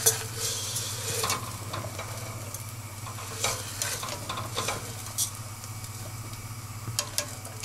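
A silicone skimmer stirring and scooping through a pot of boiling water, lifting out blanched asparagus and spinach, with scattered sharp knocks and splashes against the stainless steel pot.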